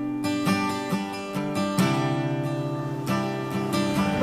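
Background music: an acoustic guitar strumming sustained chords, which change a few times.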